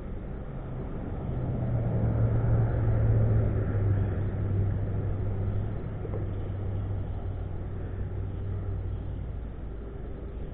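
A motor vehicle's engine drones past, swelling to its loudest a few seconds in and then easing off, with its pitch settling slightly lower. Under it is a steady rush of noise.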